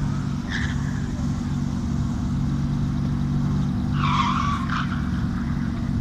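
Audi Quattro's five-cylinder engine idling steadily at the start line, a continuous low lumpy running note. A short higher-pitched sound cuts in briefly about four seconds in.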